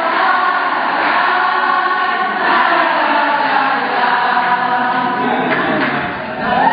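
A choir of many voices singing together in long, held notes that slowly bend in pitch, with a short dip in loudness near the end.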